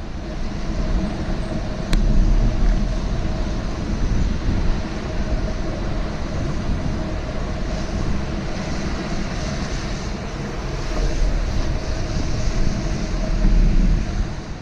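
Wind rushing over a bike-mounted action camera's microphone while cycling, a deep, uneven rumble, mixed with the hiss of tyres and passing traffic on a wet city street. A single sharp click about two seconds in.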